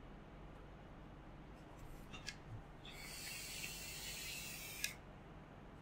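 Airy hiss of a draw on a squonk mod with a Guillotine RDA, about two seconds long and starting about three seconds in, ending in a sharp click. A few faint clicks come before it.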